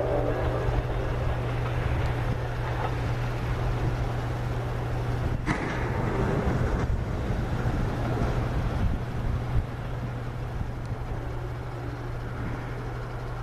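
Passenger train running through the station: a steady low rumble with rushing rail noise, as the tail of its horn chord fades out in the first half second. A sharp click comes about five and a half seconds in, and the rumble drops a little near ten seconds.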